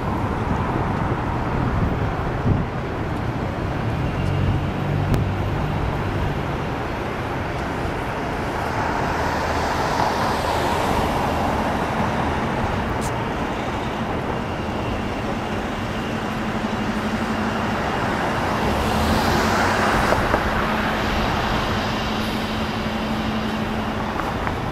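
Steady city road traffic, with passing vehicles swelling louder twice, about ten and twenty seconds in. A low engine hum runs through the second half.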